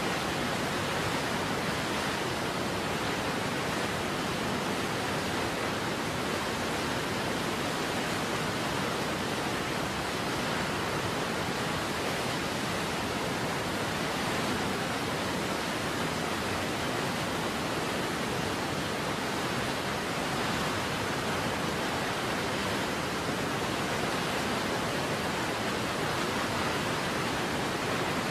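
Waterfall rushing steadily: an even, unbroken wash of noise from low to high pitches that does not change.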